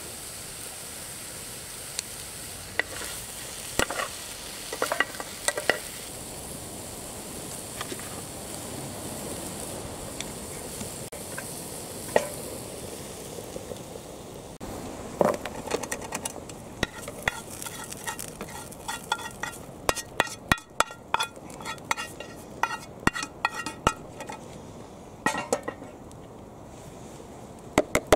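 Vegetables sizzling in olive oil in a frying pan, with metal tongs clicking and scraping against the pan as they are stirred. About halfway through the sizzle fades and a quick run of sharp tong clicks and scrapes follows as the food is lifted out.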